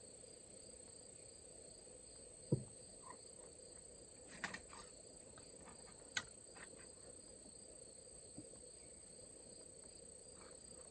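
Faint, steady chirring of crickets in the background, broken by a few light clicks and knocks. The loudest is a dull knock about two and a half seconds in.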